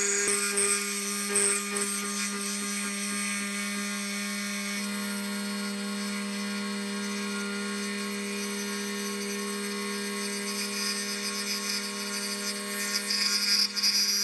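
Milling spindle running a 3 mm end mill that is plunge-cutting a keyway into the bore of a small bevel gear. A steady whine runs throughout under the cutting noise. The tone shifts slightly about five seconds in, and the cutting grows sharper and louder near the end.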